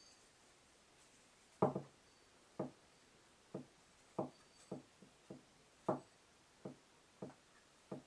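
About a dozen short, irregular knocks and clicks as hands handle the parts of a graphics card on a wooden desk.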